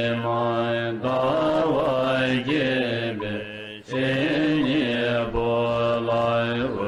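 Buddhist mantra chanting: a melodic chanted voice in phrases of about three seconds, each ending in a short pause, over a steady low drone.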